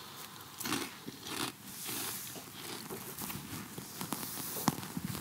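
Potato chips being crunched while eating, as irregular crackly crunches with a sharp click near the end.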